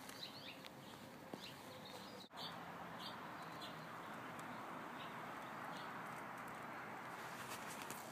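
Small birds chirping in scattered short calls over faint, steady outdoor background noise.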